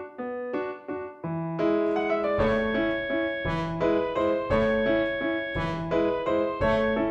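Background piano music: a light, evenly paced melody that is joined by fuller chords and a low bass line about two seconds in.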